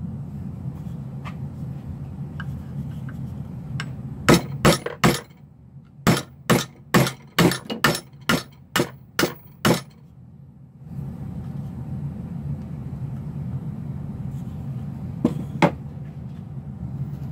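Ball peen hammer with a new wooden handle driving a nail into a plywood board: sharp metal-on-metal strikes, three, a short pause, then about nine more at roughly two a second, and two more blows near the end.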